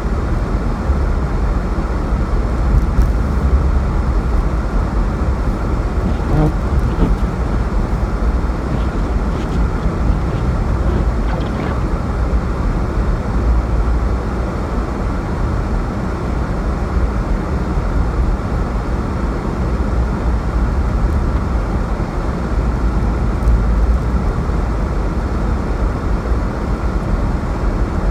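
Snowstorm wind blowing across the microphone: a steady, deep rumbling rush with small swells.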